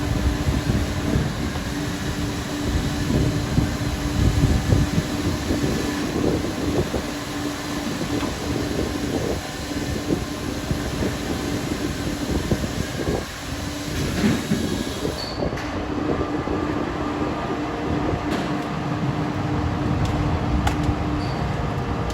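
Heavy machinery running steadily: a continuous drone with a held tone and rattling rumble. About two-thirds of the way through the high hiss abruptly drops out while the drone carries on.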